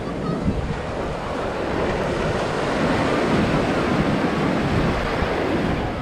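Small surf breaking and washing up over the sand at the water's edge, a steady hiss of foam.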